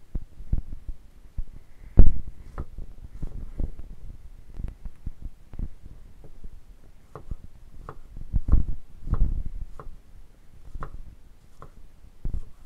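Chef's knife cutting tomatoes on a bamboo cutting board: irregular knocks of the blade striking the wood as the slices are diced, the loudest about two seconds in.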